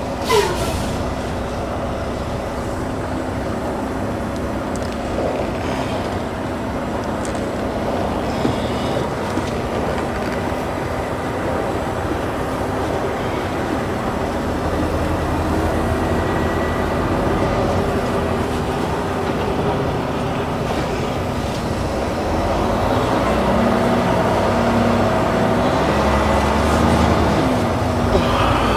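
Volvo VNL semi-truck under way, heard from inside the cab: diesel engine and road noise running steadily. The engine note changes and grows a little louder in the last several seconds as the truck picks up speed.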